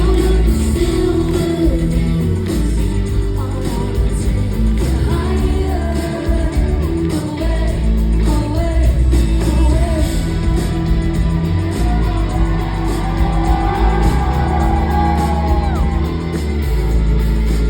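Live band playing a pop-rock song in a large hall, with a singer over a heavy bass line and steady drums, and some shouting from the crowd.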